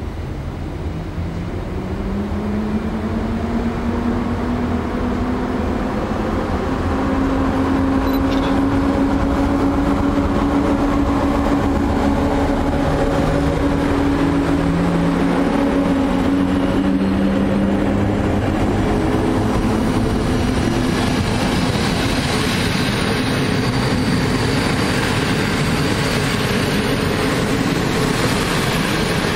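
EU07 electric locomotive passing close by with its coaches: a humming whine from the locomotive rises in pitch over the first couple of seconds, then holds steady as it grows louder. After about twenty seconds the whine gives way to the rushing rumble of the coaches' wheels on the rails.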